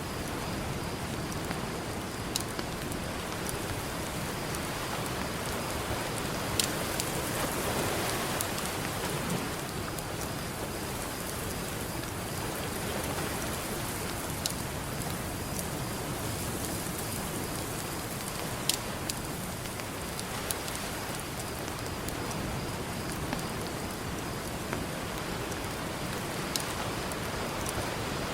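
Crackling campfire with a handful of sharp pops standing out over a steady wash of ocean surf, which swells gently once in a while.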